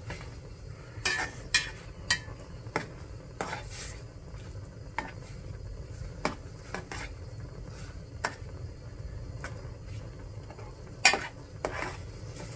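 A utensil stirring instant jjajang ramen noodles in a pot as they boil, with scattered clinks and scrapes against the pot; the loudest knock comes near the end.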